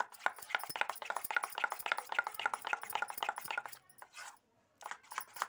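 Jalebi batter beaten by hand in a steel bowl: quick wet slapping strokes, about five or six a second, with a short break about four seconds in before the beating starts again.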